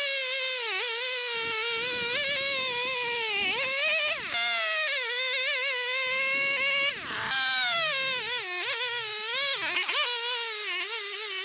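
Husqvarna two-stroke chainsaw at full throttle cutting through a white oak round. Its high whine wavers in pitch as the chain loads up in the wood, and dips sharply twice before recovering.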